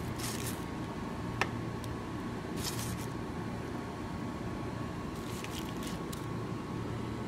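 Fried potato slices being picked up and laid out by hand on parchment paper: a few short rustles of the paper and soft handling sounds, with one sharp click about one and a half seconds in, over a steady low hum.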